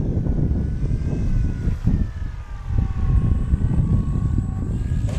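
Engine of a Hangar-9 Funtana S90 radio-controlled aerobatic model airplane flying a low landing approach, its pitch falling gradually as it slows. Heavy wind buffeting on the microphone underneath.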